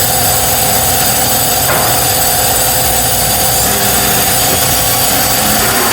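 Steady mechanical hum and noise from running machinery, constant throughout, with one faint click about a second and a half in.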